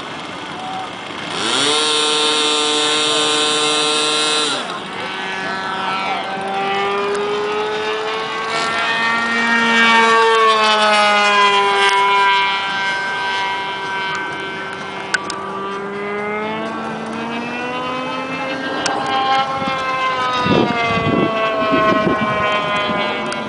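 Engine of an RC pylon racer model plane: it opens up to full throttle with a high buzz about a second and a half in for the takeoff, then rises and falls in pitch as the plane makes fast passes. A few low thumps near the end.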